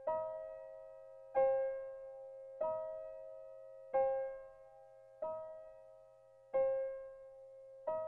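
Background music: a keyboard with an electric-piano sound plays the same soft note over and over, about one every 1.3 seconds, each note fading before the next.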